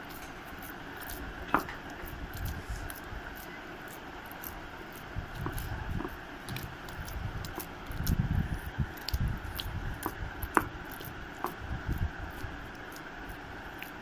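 Soft dough of flour, semolina and warm milk being worked by hand with a little ghee: irregular soft squishing thuds, with scattered light clicks and knocks, the sharpest at about a second and a half in and near ten and a half seconds.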